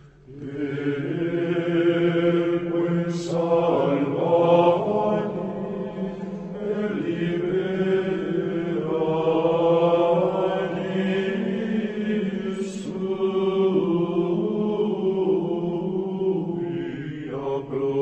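Slow, solemn vocal chanting with long held notes that shift pitch every few seconds.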